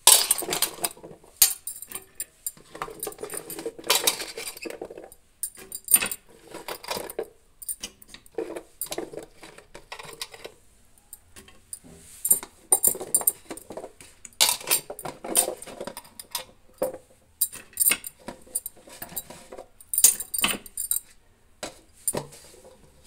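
Diced chayote being added to an aluminium pressure cooker: irregular metallic clinks and clatters against the pot, some with a short high ring.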